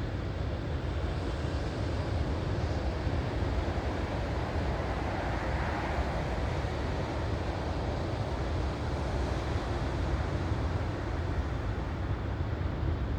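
Ocean surf washing ashore, a steady rushing with a deep rumble, with one wave swelling up about halfway through. Wind buffets the microphone.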